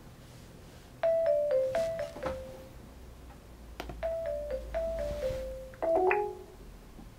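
Google Hangouts call ringing tone: short chiming notes stepping down in pitch, in two groups about three seconds apart, followed near the end by a different, lower chime.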